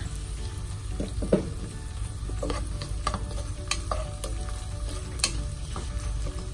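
Ground chicken, onion and tomato sizzling in a pan while a spatula stirs and scrapes through them, with scattered scrapes and knocks against the pan, the sharpest about a second in and near the end.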